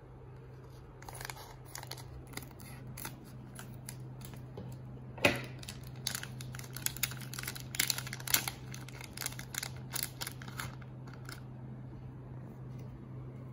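Plastic foil food pouch being opened and handled: irregular crinkling and crackling of the packaging, with one sharp louder crack about five seconds in, over a steady low hum.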